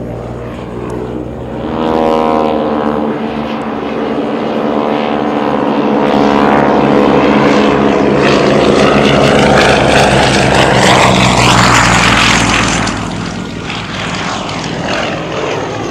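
Pitts Model 12 aerobatic biplane's nine-cylinder radial engine and propeller running at high power through aerobatic manoeuvres. The engine note bends in pitch as the plane manoeuvres. It gets louder about two seconds in, is loudest through the middle, and eases near the end.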